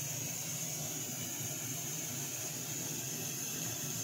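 Steady hiss with a low hum underneath, unchanging, with no distinct event.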